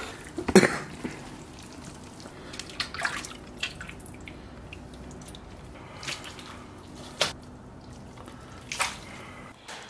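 Braising liquid dripping and splashing as chunks of braised beef shank are lifted out of the pot with chopsticks, with a few short, sharp splashes and knocks as the meat is moved into a steel bowl.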